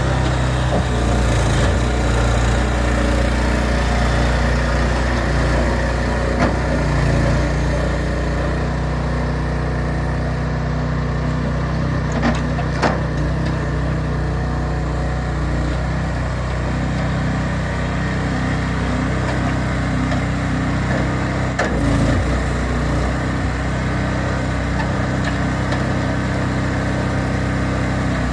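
An engine running steadily, its pitch shifting slightly now and then, with a few sharp knocks over it.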